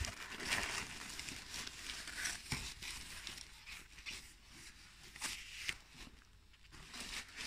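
Tissue paper and a fabric dust bag rustling and crinkling as they are handled and pulled from a box, in irregular bursts, with a soft knock about two and a half seconds in.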